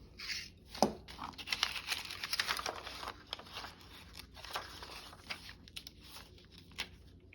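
Paper being handled: a run of crackling, tearing sounds, densest for a couple of seconds, then sparser rustles. A single sharp tap comes about a second in and is the loudest sound.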